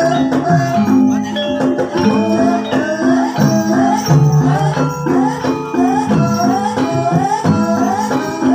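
Javanese ebeg accompaniment music, gamelan-style, playing a steady repeating pattern: low held notes under struck pitched tones, with short rising glides recurring about once a second.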